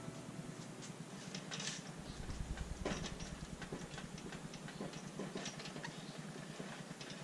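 Faint scattered clicks and small metallic taps from hand work on a bank of four Keihin FCR carburetors, with a screwdriver turning out the idle adjust screws, over a steady low background hiss.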